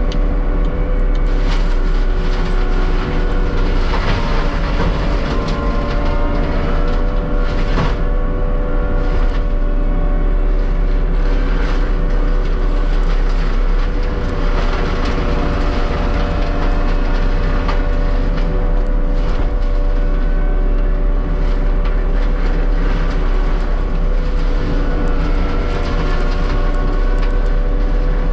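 Heavy diesel land-clearing machinery running steadily under load, with scattered short cracks and clicks over the constant engine drone.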